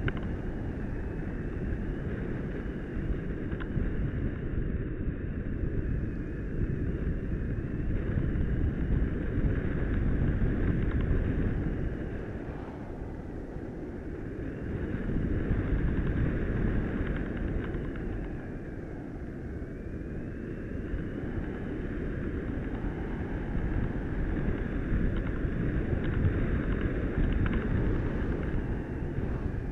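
Airstream rushing over an action camera strapped to the back of an Easy Glider Pro RC glider in flight, with a rubber band fluttering in the wind. A thin whine runs above it and dips in pitch twice, and the rush softens at those moments.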